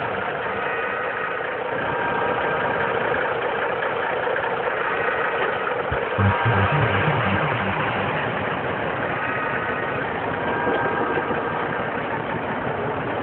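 Truck engine running steadily, with a single knock about six seconds in.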